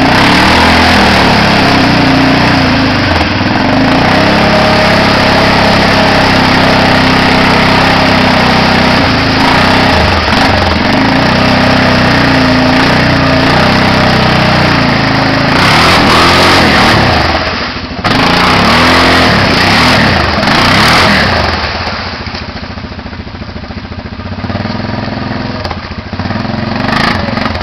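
Arctic Cat 700 EFI ATV's single-cylinder engine running hard, its pitch rising and falling as the rider works the throttle through a mudhole. It becomes quieter for the last several seconds.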